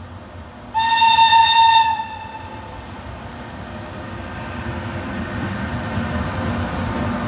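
FS E402B electric locomotive sounding its horn once: a single high note lasting just over a second. The locomotive and its coaches then rumble closer, growing steadily louder.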